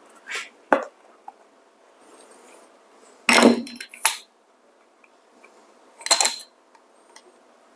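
Short knocks and clinks of hard plastic and metal coffee-grinder parts being handled and set down. The loudest knock comes about three and a half seconds in, followed quickly by a second, with another clatter about six seconds in. The grinder motor is not running.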